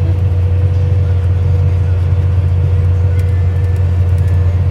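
Farm tractor engine running steadily under load, heard from inside the cab: a loud, even low drone with a constant thin whine above it.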